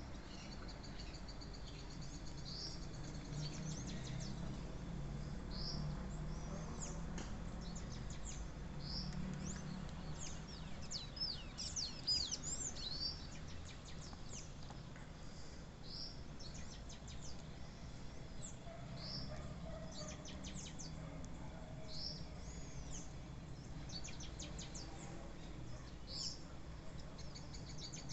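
Wild birds calling: one repeats a short high note about every two seconds, while others give quick bursts of high chirps, busiest about twelve seconds in. A steady low rumble runs underneath.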